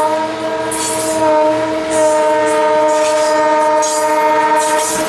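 A diesel locomotive's air horn is held in one long, steady blast. Over it come the irregular clicks and rattle of stainless-steel streamliner passenger cars rolling past over the rail joints.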